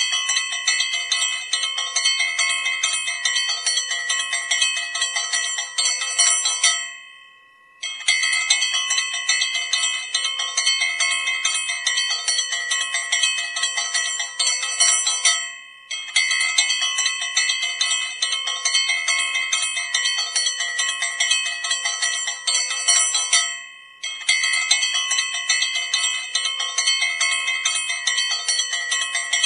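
Brass puja hand bell (ghanti) rung rapidly and without pause, its clapper striking many times a second. The ringing stops briefly three times, about seven, fifteen and twenty-four seconds in, letting the bell ring out before the rapid ringing starts again.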